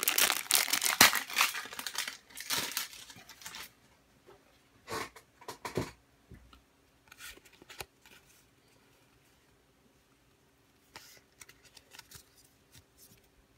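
Foil booster pack wrapper being torn open and crinkled, a dense crackling run for about the first three and a half seconds. Then a few short rustles and taps as the pulled cards are handled.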